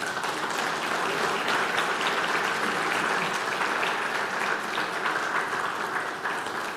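A congregation applauding in welcome, a steady clatter of many hands that begins to thin out near the end.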